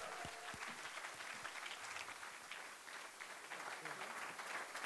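Audience applauding, many hands clapping at once, fairly faint and steady, easing slightly about three seconds in.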